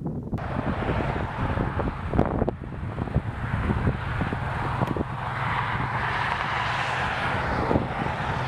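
Strong storm wind buffeting the microphone, with a steady hiss of heavy rain that starts suddenly about half a second in and swells for a couple of seconds past the middle.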